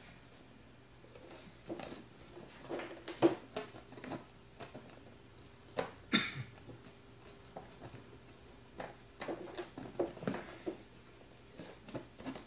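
Cardboard box parts being handled and pressed together during glue-up: scattered light taps, knocks and rustles, with a sharp knock about three seconds in and a longer scraping rustle about six seconds in.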